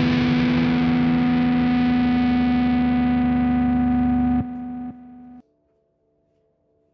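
Final chord of a rock song on distorted electric guitar, held and ringing out as it slowly darkens, then dropping away in two quick steps and cutting off about five seconds in.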